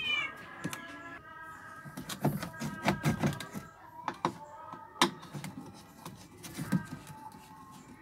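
Knocks, clicks and clatter of parts being handled and pulled loose while a washing machine is dismantled, heaviest around the middle, with one sharp click about five seconds in. A short falling high-pitched cry sounds right at the start, and steady held tones run under the first half.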